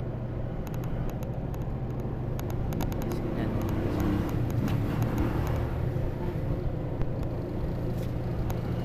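Micromatic twin-tub washing machine's spin-dryer motor running with a steady low hum, with a few light clicks. It now turns because its weak starting capacitor has been replaced with a new one.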